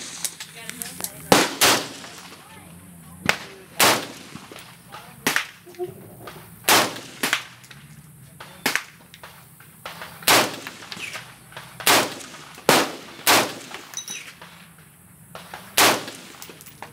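Single rifle shots fired in semi-automatic, over a dozen at irregular intervals of about half a second to two and a half seconds, from an AR-15 built with a surplus 20-inch M16 A2 upper, with other guns on the range likely among them.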